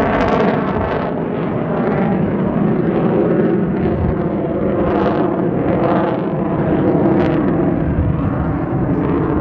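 Sukhoi Su-30MKI's twin AL-31FP turbofan engines giving a loud, steady jet roar as the fighter passes overhead, rising and falling a little in strength.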